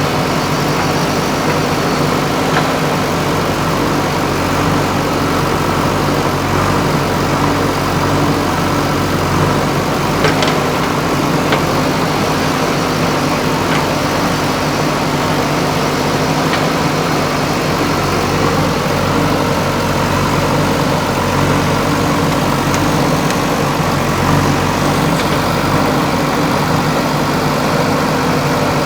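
JCB 3DX backhoe loader's diesel engine running steadily, with a few sharp knocks about ten seconds in and again a few seconds later.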